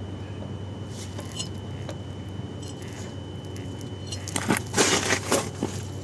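Metal parts and tools clinking and rattling in a quick cluster of sharp clicks about four seconds in, as they are handled during a wheel hub installation, over a steady low hum.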